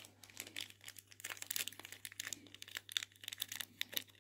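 Faint, irregular crinkling of small packaging being unwrapped by hand.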